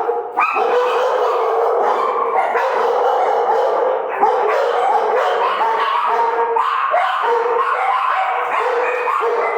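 Several dogs barking, yipping and howling all at once, their calls overlapping without a pause.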